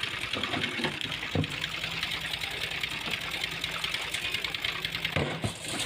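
Construction machine's engine running, with a fast, dense clatter over a steady hum, and a couple of short thumps.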